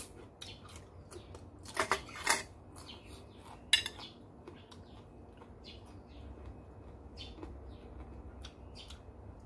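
Metal spoon clinking against the serving bowl and plates while scooping minced chicken larb, with a run of small clicks and a few louder knocks about two seconds in and just before four seconds.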